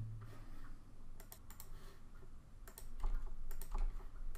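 Computer keyboard keys clicking as a password is typed, in short irregular runs of keystrokes.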